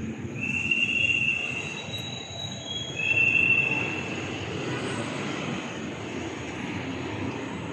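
Two high-pitched squeals from a vehicle in a concrete parking garage, each about a second long, over a steady low rumble.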